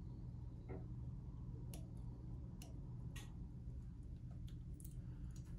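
A few faint, sharp clicks spread over several seconds, from fly-tying scissors snipping the monofilament ends and small tools handled at the vise, over a low steady hum.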